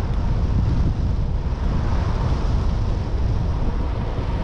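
Wind buffeting the microphone of a moving action camera: a steady low rumble, with a faint steady hum above it.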